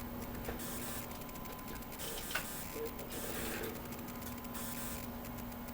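Steady electrical hum and whir of running bench electronics, with a faint constant tone, broken by a couple of light clicks.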